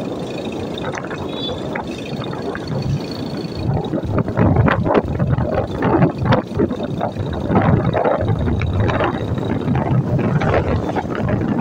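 A moving vehicle's engine and road noise, with wind gusting on the microphone and growing stronger about four seconds in.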